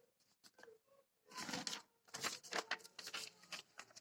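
A sheet of paper being handled and folded by hand: irregular rustling and crinkling with short sharp crackles as it is creased, starting about a second in.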